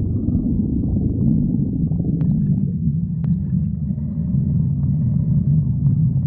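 Stomach growling: a continuous low, gurgling rumble with a faint wavering pitch, and two short clicks about two and three seconds in.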